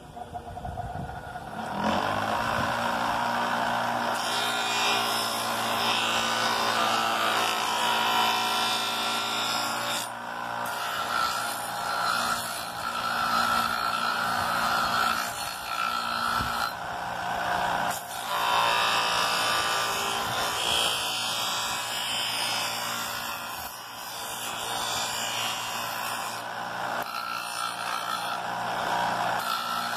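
Electric motor with an abrasive sanding disc on its shaft spinning up, its hum rising in pitch, and then running steadily. A white boomerang blank is pressed against the disc, so the rasp of sanding swells and eases as the edge is worked.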